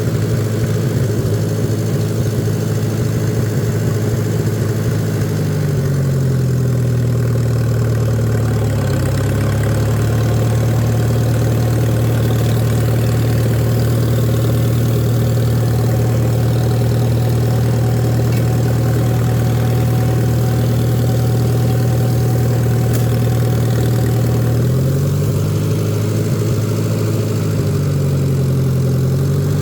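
Old farm tractor engine running steadily under way. Its note picks up about five seconds in, dips briefly near nine seconds, and changes speed again near the end.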